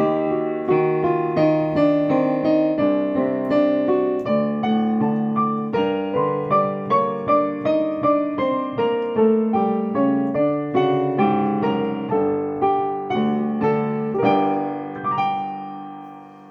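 Solo piano playing a melody over lower notes, struck about two a second; near the end a final chord rings out and dies away.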